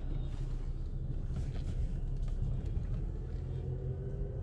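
Car interior noise while driving: a steady low rumble of engine and tyres on the road, with the engine note rising slightly near the end.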